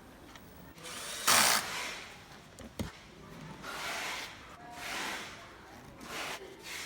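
Hand work on parts while rectifier bridge modules are refitted in a plasma cutter: a short loud rasping burst about a second in, a single sharp click near three seconds, then a few softer scraping swells.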